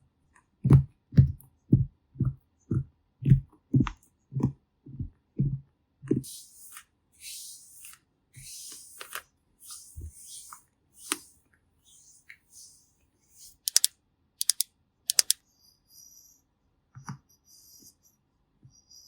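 Makeup-application ASMR sounds: a run of about a dozen soft, low taps, roughly two a second, then swishing brush-like strokes, and three sharp clicks about two-thirds of the way through.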